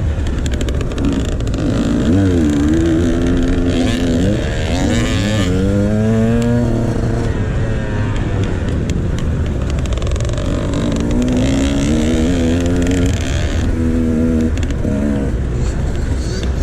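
Dirt bike engine revving up and easing off again and again, its pitch climbing and falling as it accelerates and shifts, over a steady low rumble.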